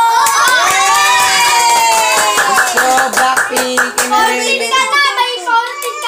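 Hand clapping with excited voices calling out over it; from about two seconds in the clapping settles into a quick even beat, about five claps a second, then thins out near the end.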